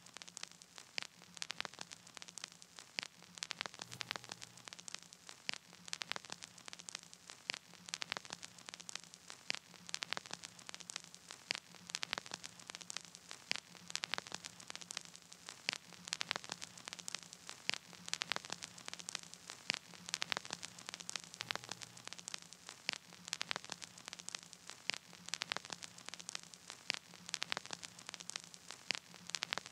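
Faint crackling static: irregular sharp clicks, several a second, over a steady hiss and a low hum.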